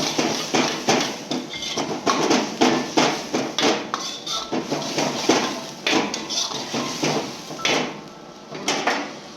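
A metal cooking utensil striking and scraping a wok while stir-frying, several quick clanks a second with a slight metallic ring. The clanks stop about eight seconds in, with one or two more just before the end.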